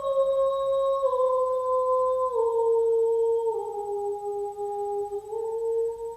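A woman's voice humming a slow, wordless melody in held notes. The notes step down three times, then rise once near the end.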